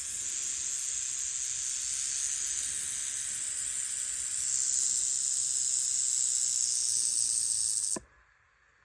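Speckled rattlesnake rattling its tail, a defensive warning: a steady high-pitched buzz that grows louder about halfway through and stops abruptly near the end.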